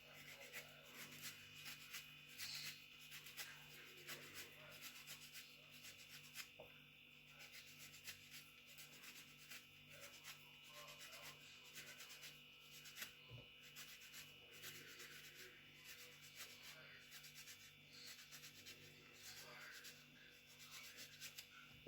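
Faint, irregular scraping and rubbing of an orange being peeled, over a low steady hum.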